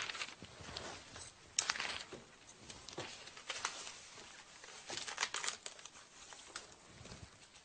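Faint rustling and a few light knocks of a book being pulled from a bookshelf and handled.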